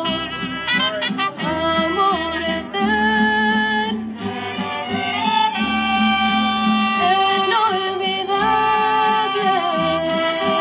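Live mariachi band playing a slow song. Held, sliding melody notes ride over a bass that pulses roughly once a second.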